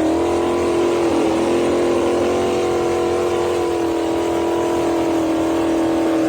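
A motorboat engine running at steady high revs, its pitch wavering slightly about a second in and then holding even.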